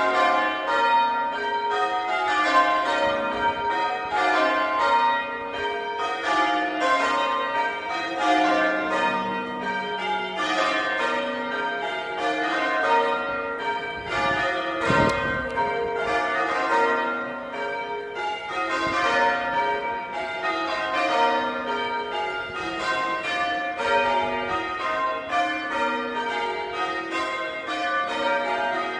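Church tower bells change ringing: a steady, even succession of bell strokes, each ringing on under the next, with the order of the bells shifting from row to row.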